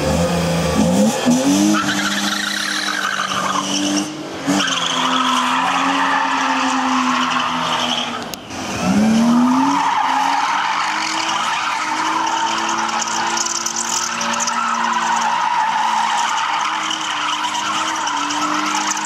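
BMW E36 Compact's M50B20 2.0-litre straight-six held high in the revs while the rear tyres squeal through a long drift. The revs dip briefly about four seconds in and again about eight seconds in, then climb back. The engine is running a bit sluggish, which the owner puts down to a short on the camshaft sensor.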